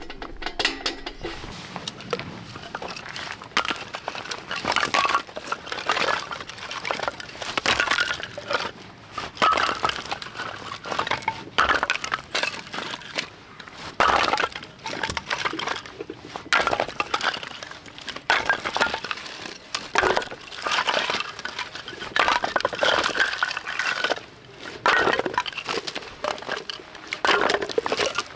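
Split firewood pieces dropped one after another onto a pile on gravel, clattering and knocking against each other in an irregular run.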